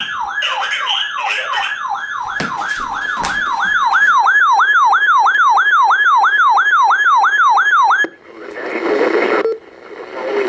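Electronic siren cycling rapidly, each cycle a fall in pitch followed by a quick jump back up, about three cycles a second, growing louder a few seconds in and cutting off suddenly about eight seconds in. It gives way to hissy radio noise.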